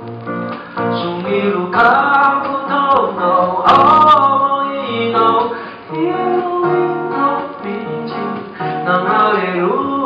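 A man singing a melody into a microphone while strumming an acoustic guitar, performed live.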